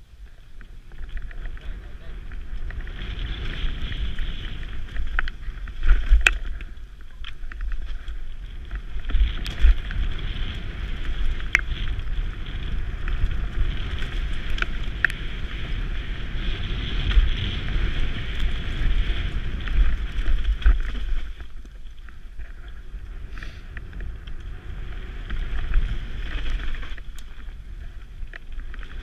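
Mountain bike running down a dirt forest trail: wind buffeting the helmet-mounted microphone, the tyres rolling over dirt and leaves, and the bike rattling, with sharp knocks from bumps now and then. It eases off for a few seconds near the end.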